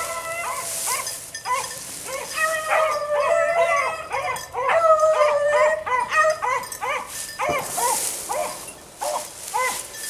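Several beagles baying together on a rabbit hunt: a dense run of overlapping short, yelping barks mixed with longer drawn-out bawls. The pack quietens briefly past the middle, then picks up again.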